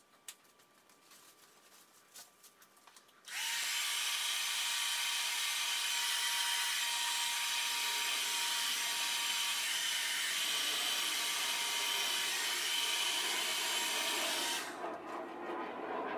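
Hand-held hair dryer switched on about three seconds in, running steadily with a thin motor whine as it blows air across wet poured acrylic paint, then switched off near the end. Soft rubbing sounds follow.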